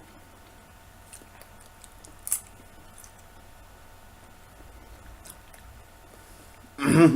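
Faint chewing of raw button mushrooms, with a few small clicks and a short wet crunch about two seconds in. Right at the end comes a loud, short burp.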